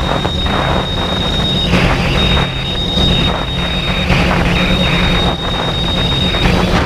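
Quadcopter drone's electric motors and propellers running in flight, heard through the camera on the drone, with wind noise on the microphone. A thin high whine sits over the steady low hum and breaks off briefly about three times.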